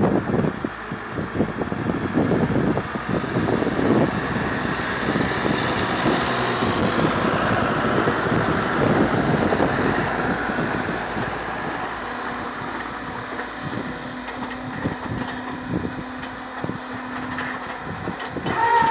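Tractor engines running at a grass silage clamp while a Strautmann Giga-Vitesse forage wagon unloads grass onto the heap. A steady low engine tone stands out for several seconds about two-thirds of the way through.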